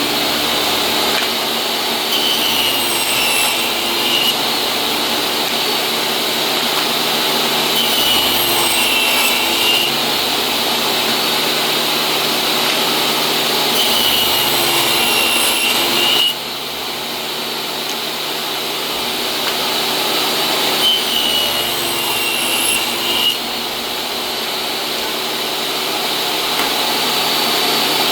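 DeWalt jobsite table saw running steadily with its high motor whine, its blade cutting four times in a row as thin strips are ripped off board edges, the pitch dipping during each cut.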